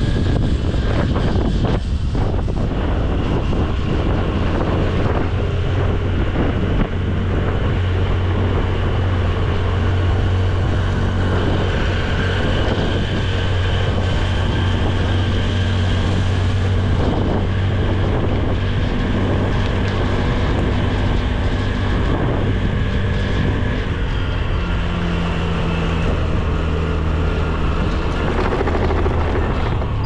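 Honda Dio scooter's single-cylinder engine running steadily under way, with wind buffeting the microphone throughout.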